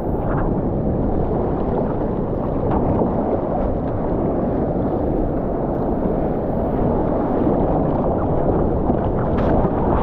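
Steady rush of wind and ocean water on an action camera's microphone in the surf.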